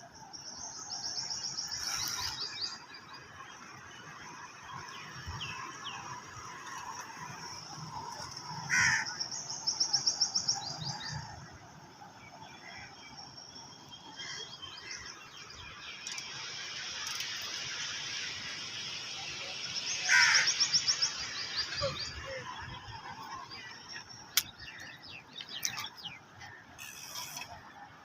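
Small birds calling in short, rapid chattering trills, three times, over a steady outdoor hiss.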